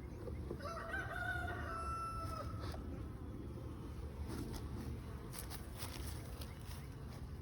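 A rooster crows once, a held call of about two seconds, over the steady low hum of honeybees at an open hive. A few light clicks follow near the end.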